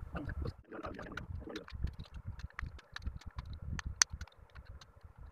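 Side cutters snipping soldered component leads on the underside of a circuit board: a run of sharp clicks, the loudest about four seconds in. Some rustling of handling comes in the first second and a half.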